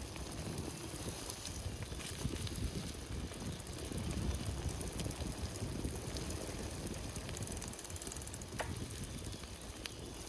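Old mountain bike being ridden: its Maxxis DTH tyres rolling over the ground in a steady low rumble, with scattered clicks and rattles from the bike, one sharper click about eight and a half seconds in.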